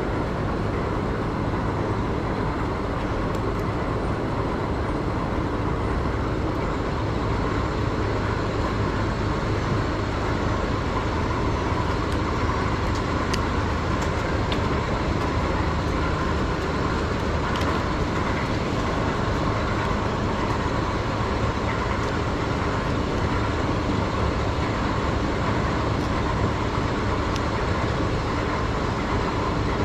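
Steady mechanical drone of running machinery, a constant low hum with a whooshing band above it, with a few faint clicks near the middle.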